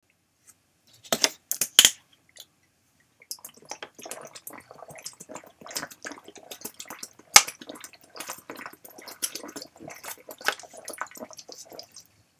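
A person drinking water from a clear plastic bottle in long swallows, with many small gulping and liquid sounds and light crinkling of the plastic. About a second in, a few sharp cracks of the plastic bottle being handled come before the drinking.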